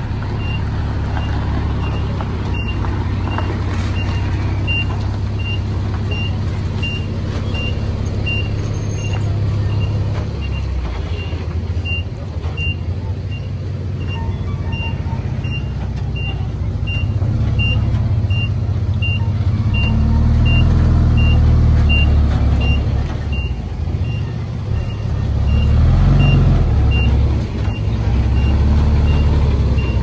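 A 5-ton dump truck reversing: its backup alarm sounds a steady high beep about twice a second over the low rumble of the diesel engine, which grows louder in the second half.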